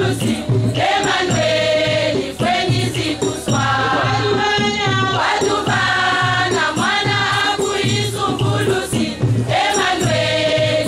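A large women's choir singing a religious song together, many voices in harmony over a steady low beat.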